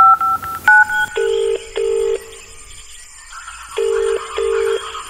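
Mobile phone keypad tones as a number is dialled, a few quick two-note beeps. Then the ringback tone of the call going through: a low double ring, heard twice.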